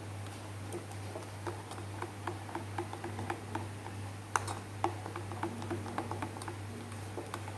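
Fried-snack batter of flour, water and egg being stirred in a bowl, the utensil clicking against the bowl irregularly, several clicks a second, over a steady low hum.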